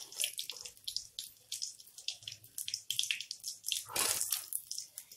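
Hot oil sizzling and crackling in a frying pan where masala-coated rohu fish pieces are frying, in quick irregular crackles with a louder stretch about four seconds in.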